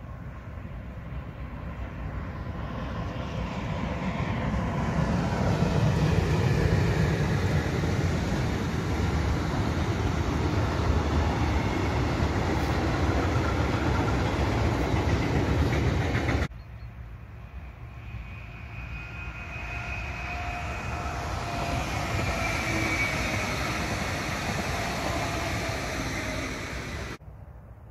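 A freight train hauled by a Lokomotion EU43 electric locomotive passes close by: a loud steady rumble of the locomotive and open freight wagons on the rails builds up over the first few seconds. After an abrupt cut about 16 seconds in, the wagons roll on more quietly, with a few thin squealing tones from the wheels.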